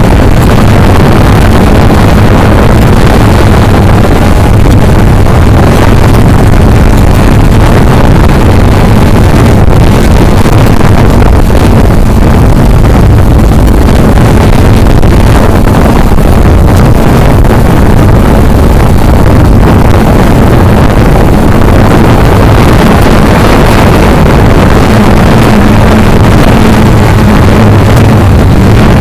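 Cheerson CX-20 quadcopter's four motors and propellers running steadily in flight, heard up close from the onboard camera as a loud, even drone with a low hum.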